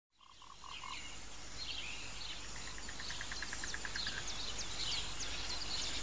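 Jungle ambience fading in over the first second: a steady hiss with scattered bird chirps and whistles, and short runs of rapid, evenly pulsed calls like frogs or insects.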